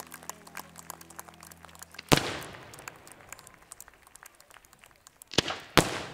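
Fireworks shells bursting: a loud bang about two seconds in and two more close together near the end, each trailing off in a rolling echo, over a scatter of small crackling pops. The show's music stops at the first bang.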